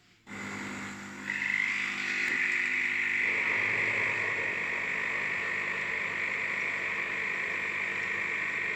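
A Philips 5360/10 machine starts up and runs with a steady, high-pitched mechanical buzz that jumps louder about a second in and then holds. This is the strange noise its owner is asking about.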